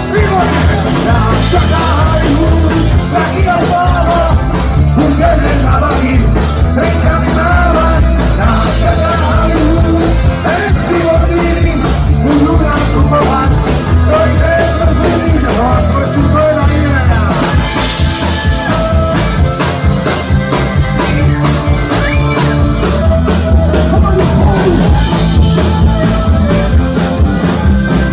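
Punk rock band playing live: loud drums, guitars and bass with a singer, without a break.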